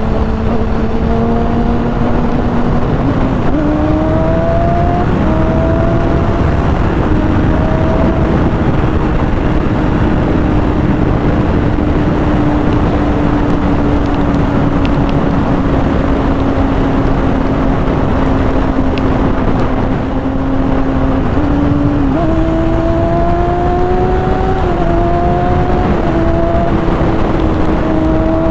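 Kawasaki ZX-6R inline-four sport-bike engine under way at highway speed, heard from the rider's helmet over heavy wind and road noise. The engine note mostly holds steady, then climbs in short stepped rises as the bike accelerates, once about three seconds in and again after about twenty-two seconds.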